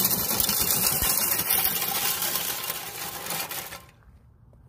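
Tamiya Bullhead RC monster truck hauling a 14-pound pull sled over gravel: the motor and gears whirring while the tires and the sled's skid pan grind across the stones, stopping suddenly about four seconds in at the end of a full pull.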